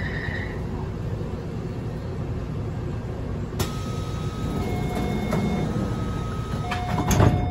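Steady hum of a Taipei Metro train standing at a platform. About halfway through there is a click and then a run of door-closing warning beeps at a few different pitches. Near the end the sliding doors thud shut, the loudest sound here.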